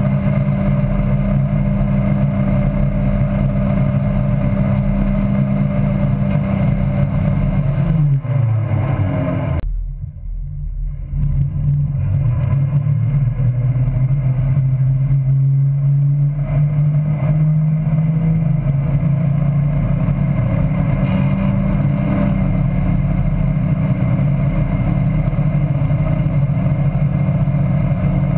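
Tow boat's engine running at speed. About eight seconds in its pitch falls as the throttle comes off and the sound dips briefly. It then picks up again and holds steady, rising a little in steps.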